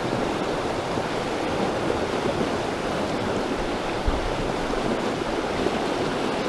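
River in high water rushing steadily where a creek joins it, a continuous even wash of flowing water, with a small knock about four seconds in.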